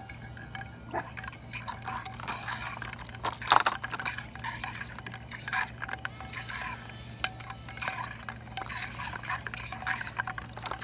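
Water splashing and sloshing in a glass fish bowl as battery-powered robotic toy fish are dropped in and swim about. The loudest splash comes about three and a half seconds in.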